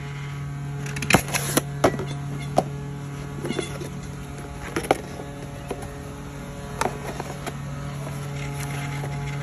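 Cardboard box and packaging being opened and handled by hand: a scattered series of sharp taps, knocks and rustles, most of them in the first few seconds, over a steady low hum.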